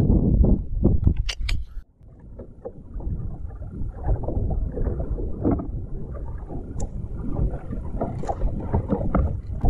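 Wind buffeting the microphone and small waves slapping against a bass boat's hull, a steady low rumble. There are a few sharp clicks about a second and a half in.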